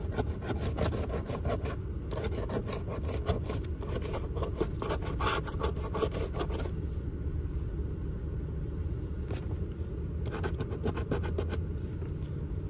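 A coin scraping the coating off a scratch-off lottery ticket in quick, repeated strokes for about the first six seconds, then again in a short burst near the end. Under it, a steady low rumble of a car.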